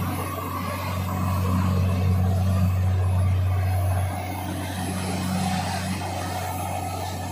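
Truck-mounted borewell drilling rig running steadily with a low, even hum, easing a little about four seconds in.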